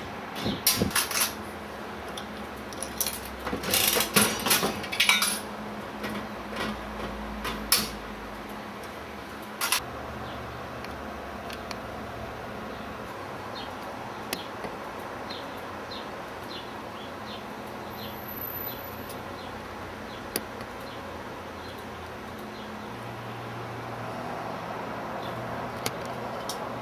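Mechanical slot machine's metal works clicking and rattling in several clusters over the first ten seconds, then a steady low hum with faint light ticks about two a second.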